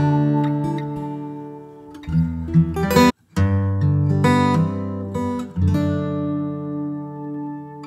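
Background music of strummed acoustic guitar chords, breaking off for a moment about three seconds in.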